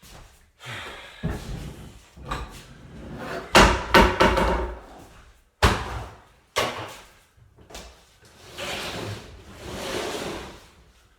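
An axe hitting a refrigerator: a run of heavy blows and crashing, with four sharp hits close together in the middle.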